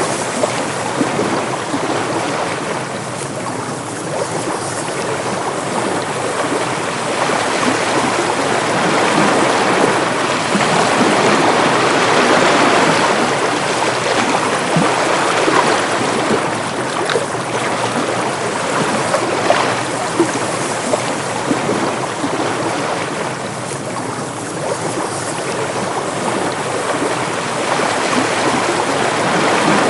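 Ocean waves washing ashore with wind, a continuous rushing that slowly swells and eases, loudest about midway.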